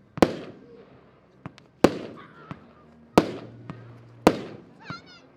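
Diamond Shock Wave 120-shot firework battery firing: four loud, sharp bangs about one to one and a half seconds apart, each trailing off in an echo, with smaller pops between them.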